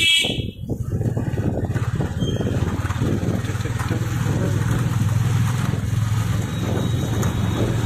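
Motorcycle engine running steadily while riding, a low even hum with road noise over it; a vehicle horn sounds briefly at the very start.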